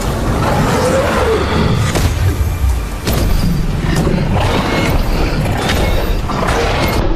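Film fight sound effects: deep booms and several sharp impact hits over a continuous low rumble, with music underneath.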